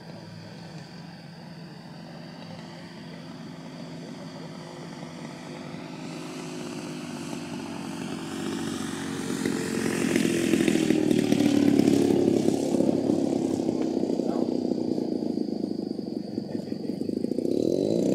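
DLE 55cc single-cylinder two-stroke gas engine of a giant-scale RC aerobatic plane running on a landing approach. It grows louder as the plane comes in low over the runway, is loudest about ten to twelve seconds in, then fades and swells again near the end as the plane rolls out on the grass.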